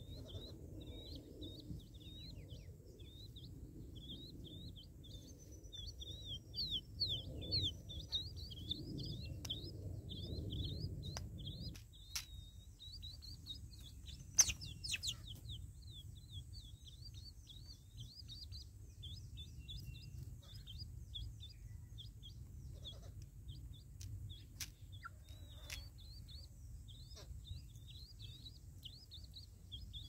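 Small birds chirping and twittering, a steady stream of short high calls. A low wind rumble sits under them for the first part and drops away about twelve seconds in, and there is one sharp click near the middle.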